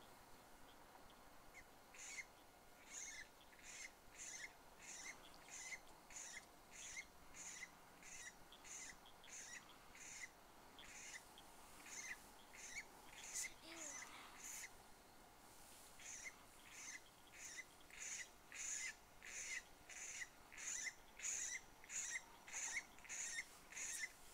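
A bird-like call note repeated about twice a second, faint and even; it starts about two seconds in and pauses briefly near the middle before resuming.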